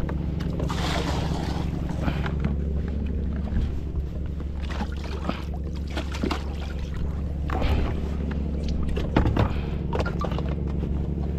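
Boat engine running steadily at a low hum, with occasional knocks and brief clatter on board.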